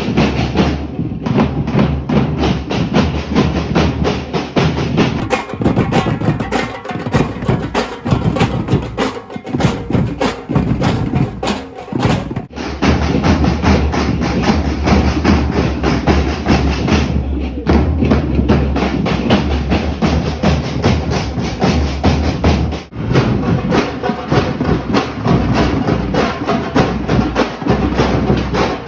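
Live percussion music: drums and wood-block-like percussion playing a steady rhythm together.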